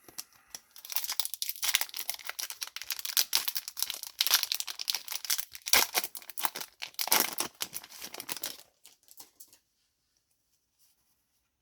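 A foil trading-card booster pack wrapper being torn open and crinkled: dense crackling for about eight seconds, stopping shortly before the end.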